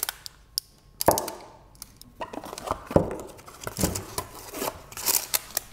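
Thin plastic wrapping crinkling as it is peeled off a new oil filter, with scattered clicks and light knocks from handling the filter.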